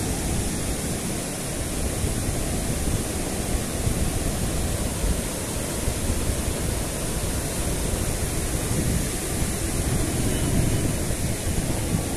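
Surf breaking on a sandy beach, a steady rushing, with wind rumbling on the microphone.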